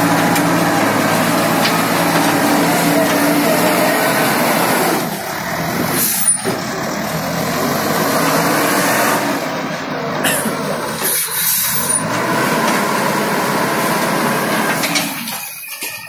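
Diesel engine of a 4.0 m³ self-loading concrete mixer running under load as its loader bucket digs into a pile and lifts, with short hisses a few times midway.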